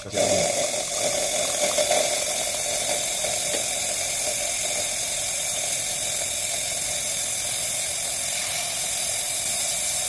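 Steam wand of an ACS Vostok lever espresso machine steaming milk in a stainless pitcher: a steady loud hiss with a steady tone underneath. The steam is quite dry.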